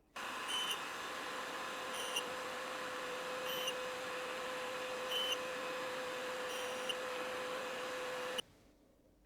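Clarkson tool-and-cutter grinder running with a steady hum and hiss, and a brief sharper, higher sound about every one and a half seconds. It starts and stops abruptly.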